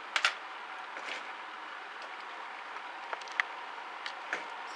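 A few small, sharp clicks and taps as the disassembled mini angle grinder's switch, wiring and parts are handled: a quick double click just after the start, then single clicks around one, three and four seconds in, over a steady hiss.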